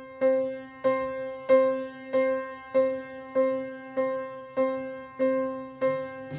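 Background music: the same keyboard chord struck about every 0.6 seconds, each strike fading before the next.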